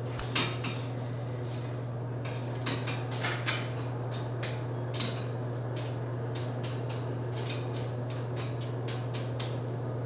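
Steel bar stock being shifted about in a forge fire: irregular light metallic clinks and scrapes, the loudest just after the start and again about five seconds in.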